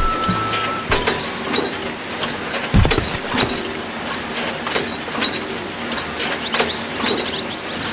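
Toy fishing game's gear mechanism running: a steady mechanical whirr with rapid ratcheting clicks, and a single dull thump about three seconds in.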